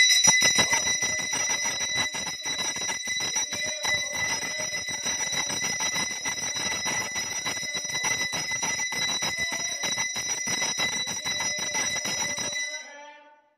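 Brass hand bell (puja ghanta) rung rapidly and continuously, a steady high clanging ring that stops about a second before the end.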